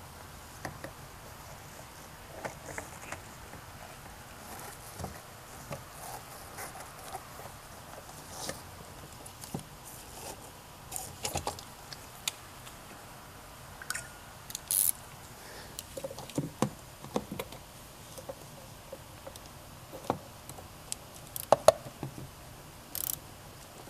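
Scattered light clicks and taps of hand work: a screwdriver turning a hose clamp tight, and parts being handled in the engine bay.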